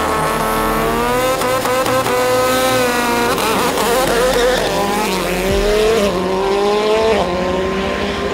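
Airslayer Subaru WRX STI race car, 862 horsepower, accelerating hard up through the gears. The engine note climbs and drops back about three times, once at each upshift.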